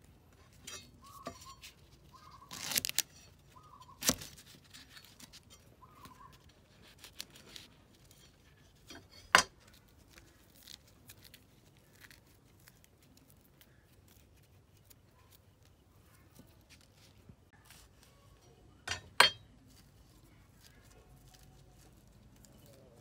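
Hands working on a wooden chopping board: papery skin crackling as a garlic clove is peeled, scattered soft clicks, and a few sharp knocks, the loudest two close together late on.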